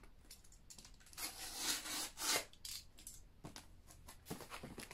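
Cardboard mailing box being cut open with a small blade: a run of scraping, rasping strokes along the cardboard, the longest a little over a second in, followed by shorter ones.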